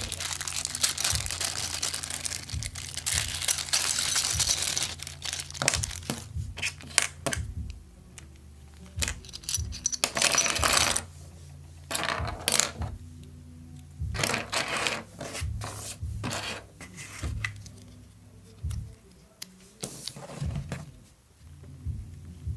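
Hands working on a laptop with small tools to replace its battery: many clicks, taps and small clatters of hard plastic and metal. There is a long stretch of scraping and rustling in the first five seconds and another about ten seconds in, over a steady low hum.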